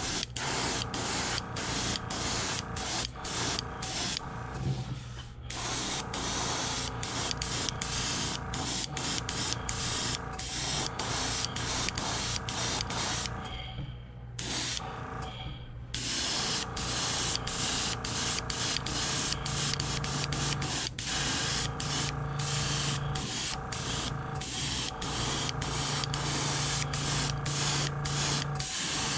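Airbrush spraying opaque white base-coat paint as a steady hiss, broken by many brief pauses and two longer stops, one about five seconds in and one around fourteen seconds in. A steady low hum runs underneath.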